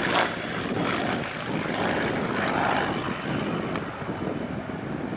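Supermarine Spitfire Mk IX's Rolls-Royce Merlin V12 engine and propeller droning as the warbird flies its display, the sound easing slightly near the end.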